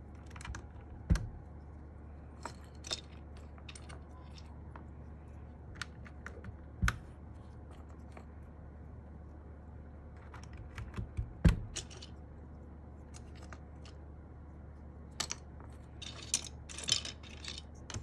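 Scattered light clicks and clacks of plastic keycaps being handled and set down, loudest about a second in, near seven seconds and near twelve seconds, over a steady low hum.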